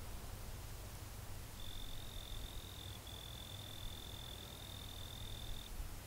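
An insect trilling: one steady high-pitched note that starts under two seconds in, breaks briefly, then carries on for about four seconds in all before stopping shortly before the end, over faint low background noise.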